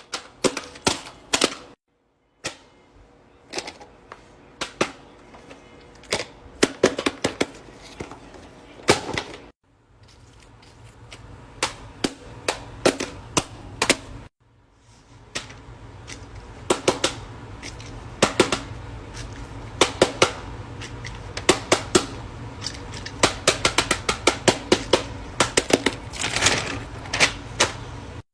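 Handheld fidget toys being popped and clicked in quick runs of sharp snaps, in several short clips that cut off abruptly. A low steady hum lies under the later clips.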